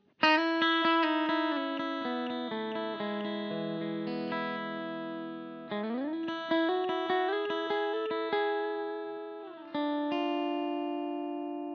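Electric guitar played through its Lambertones Crema bridge pickup: a chord struck three times, at the start, about halfway and near the end, each left ringing and slowly fading, with single notes picked in between.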